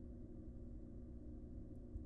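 Steady low electrical hum with a faint ticking near the end.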